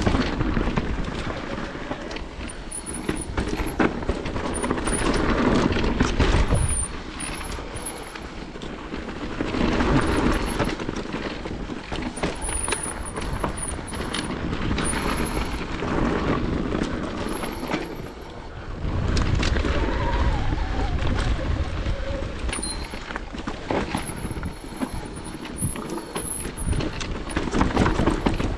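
Electric mountain bike ridden along a dirt trail: a rushing ride noise that swells and eases in waves, broken by many sharp clicks and knocks as the bike rattles over rough ground.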